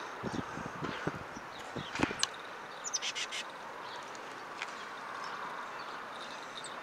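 A few soft knocks and rustles in the first two seconds, the loudest about two seconds in, as a fishhook is worked out of a fish's mouth by hand. A steady outdoor background runs underneath, with a few brief bird chirps.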